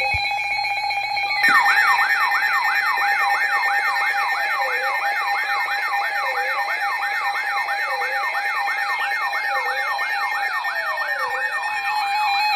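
Electronic siren: a steady tone, joined after about a second and a half by a fast yelp sweeping up and down about three times a second. A slower wail sweeps underneath.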